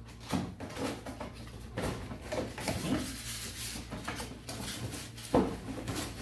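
Cardboard blender box being opened by hand: flaps lifted and the packaging pulled about, with irregular rustling and scraping and a few knocks, the sharpest about five seconds in.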